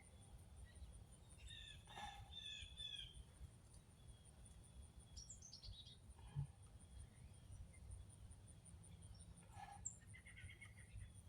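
Near silence with faint birds chirping in the background: a few short chirping phrases, about a second or so each, heard three times. A faint steady high tone runs underneath.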